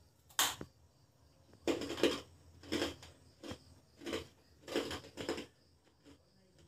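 A person biting into a crisp homemade Bournvita (chocolate-malt) biscuit, with one sharp crunch about half a second in. A run of crunching chews follows, about one every half-second to second, and stops about five and a half seconds in.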